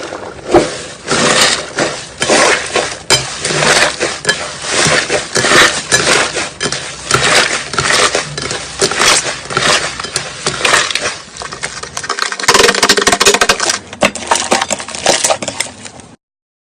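Slime being squeezed and pressed by hand, giving a steady stream of crackling and popping. About twelve seconds in the crackles turn finer and quicker, and the sound cuts off suddenly just before the end.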